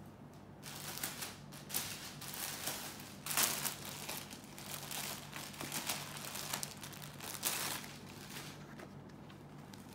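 Clear plastic saree packaging crinkling and rustling as it is handled on a table, louder about three and a half seconds in and again about seven and a half seconds in.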